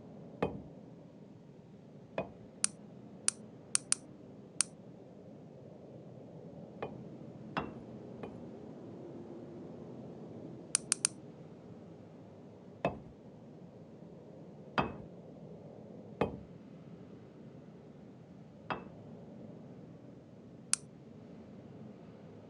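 Irregular clicks and clinks of hard objects, some sharp and high, others duller knocks with a short ring, spaced a second or more apart over a low steady background hum.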